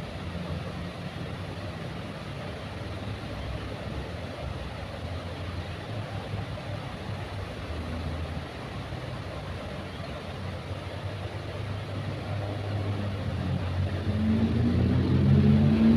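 Approaching train: a low, steady rumble that grows louder over the last few seconds, as the pitched drone of the locomotive engine comes in near the end.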